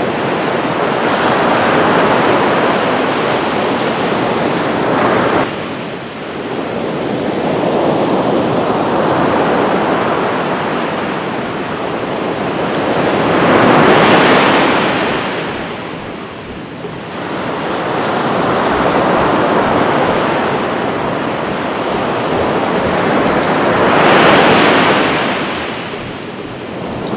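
Ocean surf breaking on a sandy beach and washing up the shore, a steady rush that swells and fades in slow surges, with the biggest breakers crashing about halfway through and again near the end.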